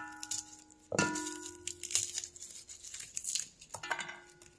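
Garlic cloves being broken off the bulb by hand, the papery skins crackling and tearing, and cloves dropping into a stainless steel chopper bowl: a clink about a second in and another near the end, each leaving the bowl ringing with a clear tone.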